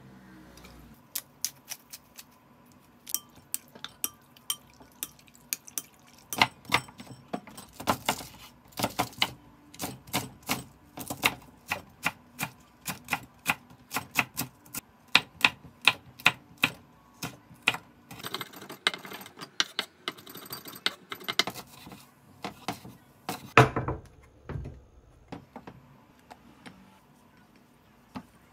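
Kitchen knife chopping vegetables, including green onion, on a wooden cutting board: a long run of sharp knocks, two or three a second. The chopping stops a few seconds before the end.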